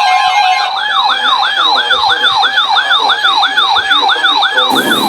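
Electronic weather-radio alert siren: a falling sweep repeated about three times a second, with a wavering higher tone over it, sounding as a warning is received. A short burst of static comes near the end.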